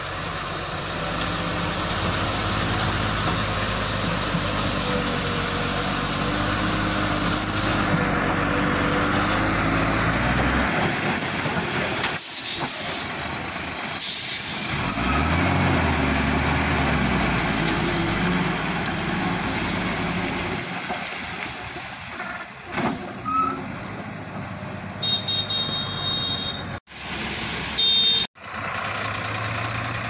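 Ashok Leyland 1618 tipper's six-cylinder diesel engine running under load as the loaded lorry reverses, steady at first, then rising and falling in pitch about halfway through. A short high-pitched beep sounds near the end.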